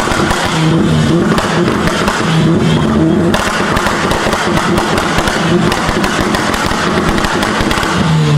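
Car engine held on a two-step launch limiter at a steady high rev, the limiter cutting in and out so the exhaust stutters with a fast, continuous run of pops and crackles.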